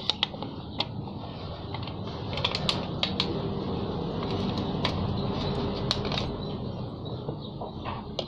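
Scattered clicks and light knocks as a patched inner tube and an old-piston hot-patch vulcanizing clamp are handled and set in place, over a steady low hum.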